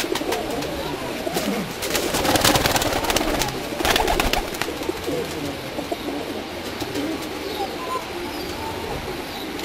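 Domestic pigeons cooing steadily. About two seconds in, a handheld pigeon beats its wings hard in a loud, rapid flurry of wing claps lasting about two and a half seconds.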